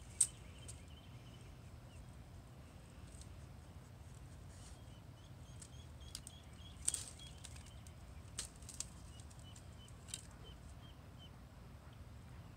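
Quiet outdoor ambience at a pond: a low steady rumble with a few sharp clicks, the loudest just at the start and about seven seconds in. Faint, quick, high peeping calls repeat through the middle.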